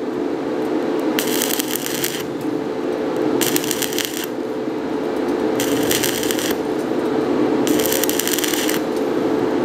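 Stick (MMA) welding arc from a 3 mm rutile electrode at 80 amps, crackling in about five bursts of roughly a second each, about two seconds apart. Each burst starts when the arc is struck and cuts off as the electrode is sharply pulled away and the arc goes out. A steady hum runs underneath.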